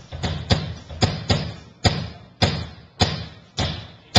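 A single drum struck over and over at an even pace, a little less than twice a second, each hit a deep thud with a sharp attack that dies away quickly: a drum being checked on its own for a sound check.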